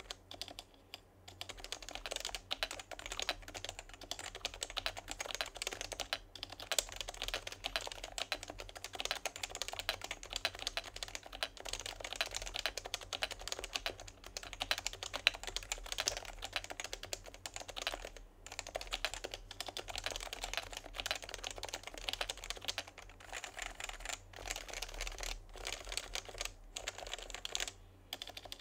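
Continuous fast typing on a Topre electro-capacitive keyboard built from HHKB Professional Classic 2 internals in a Realforce housing with an aluminium plate and stock black HHKB keycaps. The keystrokes are a dense stream of soft clicks, with a few brief pauses.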